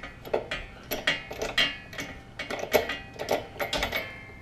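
Irregular metallic clicks and clinks of a ratchet and deep-well spark plug socket being worked on a lawn mower's spark plug, a few strokes a second, each with a short ring.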